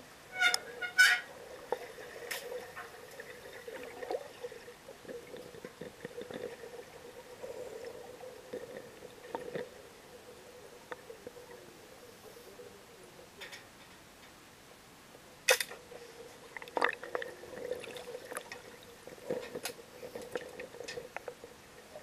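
Underwater pool sound picked up by a camera below the surface: muffled water and bubbling over a steady faint hum, broken by a few sharp knocks, the loudest about fifteen seconds in.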